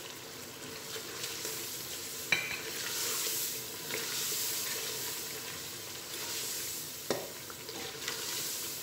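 Chopped tomatoes sizzling in hot oil and spices in an aluminium pressure cooker, stirred with a wooden spoon. The sizzle swells a few seconds in, and there are two sharp knocks against the pot, about two seconds in and again near the end.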